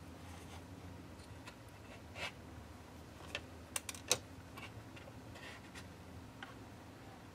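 Small clicks and knocks of metal C-clamps and plastic spring clamps being handled and set on a wooden model boat hull, with a quick cluster of sharp clicks about four seconds in, over a faint low hum.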